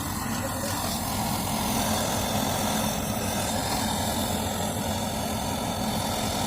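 Steady hum of a running electric machine, with a low drone and an even hiss over it.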